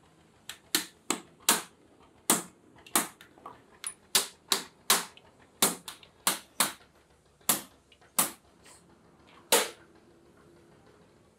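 A hammer striking the rivets of a truck clutch plate's friction lining over a riveting anvil. About eighteen sharp blows come at uneven spacing, roughly two a second, and stop a little before ten seconds in.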